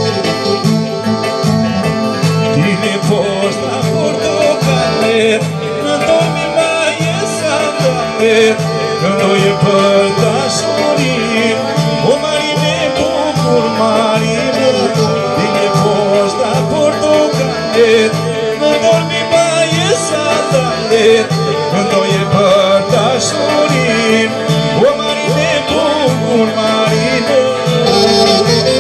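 Albanian folk music played live: a clarinet playing an ornamented, wavering melody over electronic keyboard accompaniment with a steady beat, and a man singing through a microphone.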